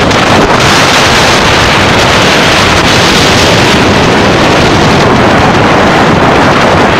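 Loud, steady wind buffeting a phone's microphone from the rush of air while riding on a moving car.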